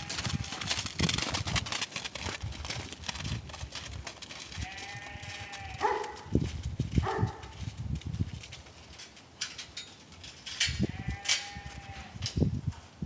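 Sheep bleating: two long bleats and a couple of short ones in between, over repeated footsteps on snowy ground.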